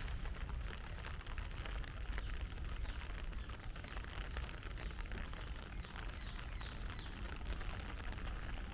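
Heavy rain falling steadily, a dense patter of many small drop ticks over a low rumble.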